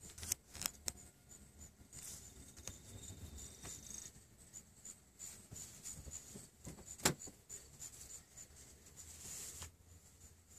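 A few faint clicks and taps over low background hiss, the sharpest single click about seven seconds in.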